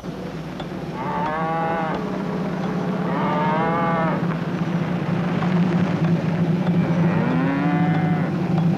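Cattle mooing three times, each call a long arching low bellow, over a steady low drone.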